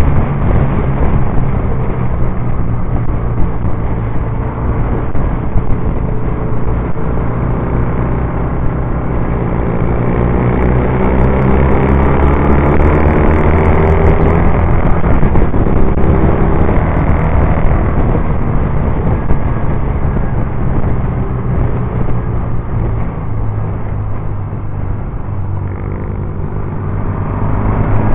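Onboard sound of a Norton Commando 850 parallel-twin motorcycle engine running hard at racing speed, with wind rush on the microphone. The engine note rises and falls in the middle as the rider works the throttle.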